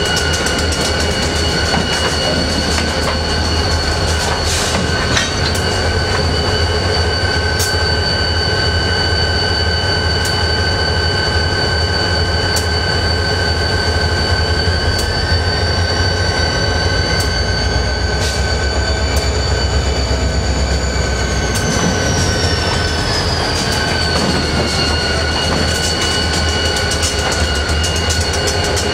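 Freight train with diesel locomotives moving slowly: a deep engine rumble under a steady high-pitched squeal of steel wheels on rail. About halfway through, a second squeal rises in pitch and then falls back, with scattered clicks of wheels over rail joints.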